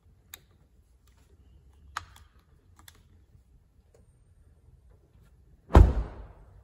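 Hyundai i10 front door being shut: one heavy thud near the end, with a short ringing decay. A few light clicks come before it.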